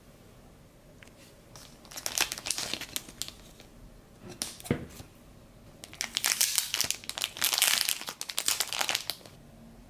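Thin clear plastic packaging crinkling as it is handled and a small cellophane packet is worked open. It comes in two bouts, a short one about two seconds in and a longer, busier one from about six seconds in, with a soft bump in between.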